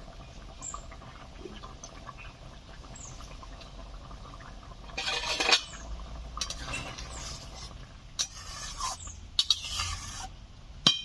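Spatula stirring and scraping through a pan of egg curry as the chopped coriander is mixed in, in a few short scrapes about five seconds in and again around eight to ten seconds, over a low steady background.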